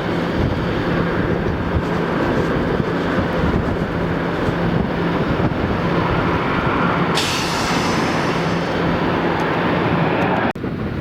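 Steady vehicle running noise with a low hum. A hiss joins about two-thirds of the way through, and the sound cuts off abruptly near the end.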